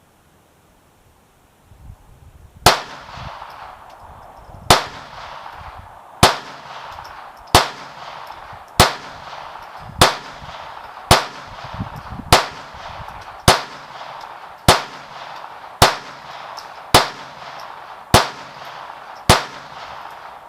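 Kel-Tec P17 .22 LR semi-automatic pistol firing fourteen shots at a steady pace, about one a second, each crack ringing out briefly. The string empties the magazine, and the slide holds open after the last round.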